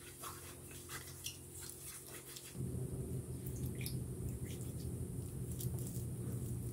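Soft sticky clicks of a silicone brush spreading oil in a pan, then wet hands squishing a mashed broccoli and potato mixture in a glass bowl. A low steady hum comes in about two and a half seconds in and is the loudest sound.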